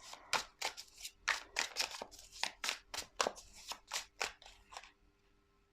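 Tarot cards being handled: a rapid, irregular run of crisp card snaps, about four a second, that stops abruptly about five seconds in.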